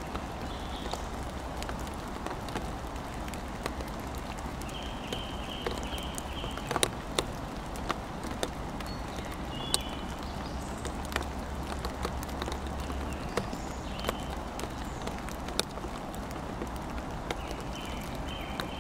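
Rain falling: a steady hiss of rain with drops tapping irregularly on the wooden playground tunnel.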